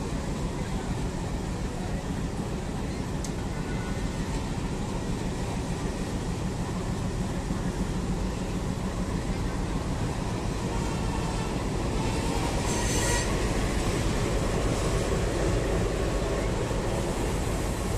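Passenger coaches rolling slowly along the rails in a shunting move, with a diesel locomotive running: a steady rumble that grows a little louder after about twelve seconds, and a short high hiss about thirteen seconds in.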